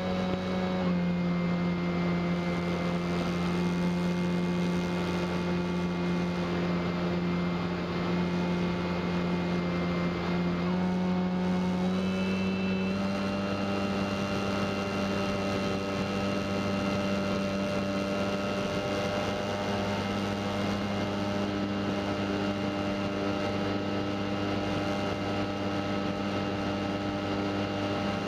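HeadsUpRC 4248-800 brushless outrunner motor and 13x6.5 APC propeller of an electric RC L-4 Grasshopper droning in flight, heard from a camera mounted on the plane. The pitch dips slightly about a second in, then rises again in two steps around eleven and thirteen seconds in as the motor speed changes.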